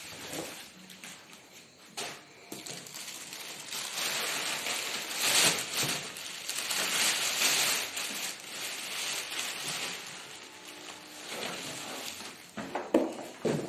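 Cardboard box and plastic wrapping rustling and scraping as a flat-screen television is unpacked, with a few sharp knocks.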